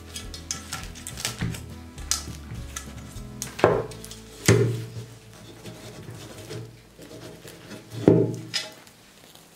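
A round metal baking pan being handled on a wooden bead trivet, clattering and knocking, with three sharper knocks: one about a third of the way in, one soon after, and one near the end. Soft background music plays underneath.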